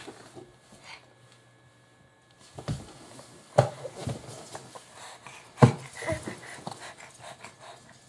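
A baby panting and making short excited breathy sounds up close, with a few sharp taps about three and a half and five and a half seconds in.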